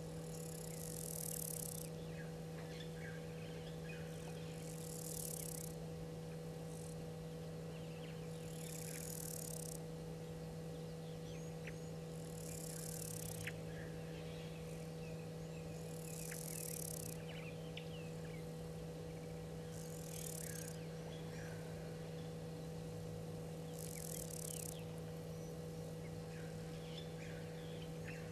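Outdoor bush ambience: scattered short bird chirps and a high buzz about a second long that repeats roughly every four seconds, over a steady low electrical hum.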